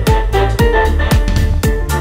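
Background music with a steady beat, about two kick-drum beats a second, and short pitched keyboard-like notes.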